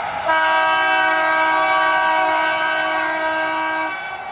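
Newag Impuls electric multiple unit sounding its horn in one long, steady blast of about three and a half seconds as it approaches, with the train's running noise beneath.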